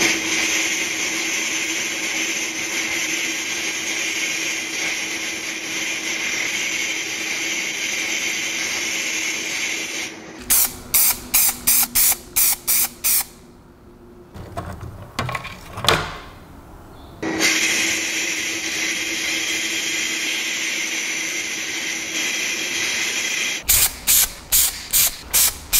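Abrasive blasting in a blast cabinet on a small rusty steel stapler part: a steady loud hiss of air and grit, with a faint steady hum under it. This stops about ten seconds in and gives way to a quick run of short hissing bursts. A second long blast follows, and another run of short bursts closes it.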